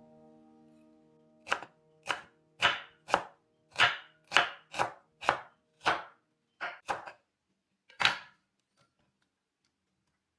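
Knife chopping vegetables on a cutting board: about a dozen single cuts, roughly half a second apart, then a short pause and one last cut.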